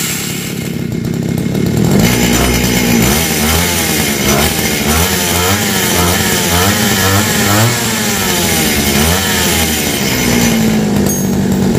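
Small two-stroke grass-cutter engine running. It idles, is revved up and down over and over for several seconds, then settles back to a steady idle about ten seconds in.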